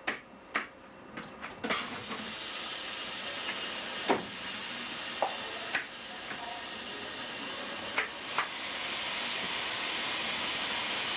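Compressed air hissing steadily in a train's air system, with several sharp clicks and knocks; the hiss grows louder about eight and a half seconds in.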